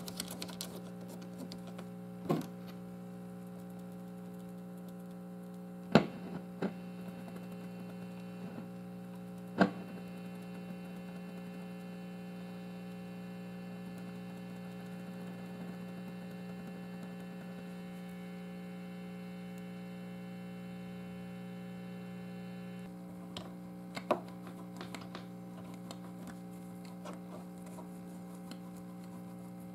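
Marshall guitar amp humming steadily through its speaker while the volume pot shaft and then the input jack plug are wiggled to check for a bad contact. Several sharp pops stand out, the loudest about six and ten seconds in, and the higher part of the buzz drops away a little after twenty seconds.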